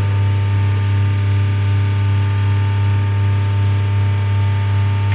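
Loud, steady electrical hum with a buzzy edge that does not change.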